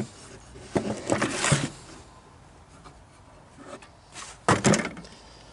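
Handling noise: short bursts of rubbing and scraping as items are moved about, one about a second in and a shorter one later.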